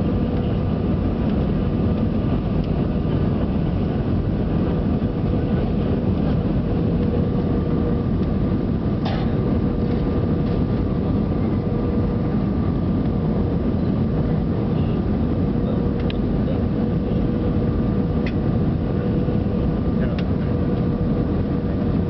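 Steady cabin noise of a jet airliner on final approach: engine and airflow drone with a held whine, heard from inside the cabin. A few faint clicks come through about nine seconds in and again later.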